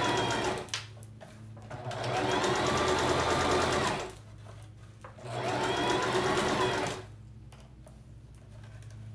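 Singer electric sewing machine stitching a lace closure onto a wig cap in short runs: one run stops just under a second in, then two runs of about two seconds each follow. In each run the motor speeds up and then slows.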